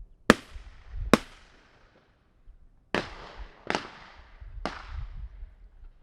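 Five gunshots from a hunt, each with a long echoing tail. Two come less than a second apart, then after a pause of nearly two seconds three more follow at intervals of about a second.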